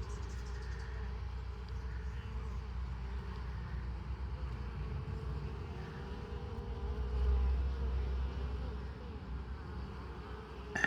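Honeybees and raiding yellowjackets flying around a hive entrance: a steady, wavering buzz of many wings. A low rumble swells about seven seconds in.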